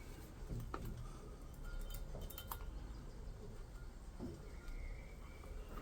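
Faint clicks and small handling noises from masking tape and a brake caliper being worked by hand, over a low steady hum.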